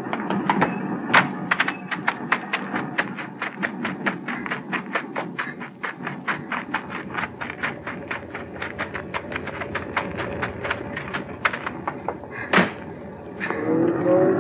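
Radio-drama sound effect of train wheels clicking over rail joints: a rapid, even clicking at about four to five a second. A single loud thud comes about two seconds before the end.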